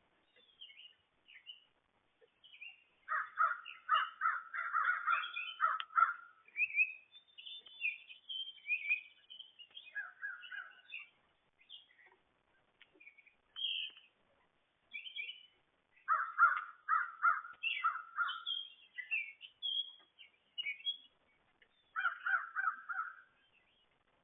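Wild birds calling: three loud runs of quickly repeated, mid-pitched calls, several notes a second, with shorter, higher chirps from smaller birds scattered between them.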